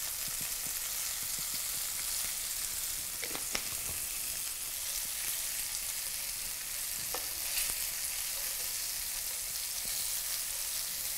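Flour-dusted shrimp frying in butter and oil in a nonstick pan, a steady sizzling hiss, with a few light clicks.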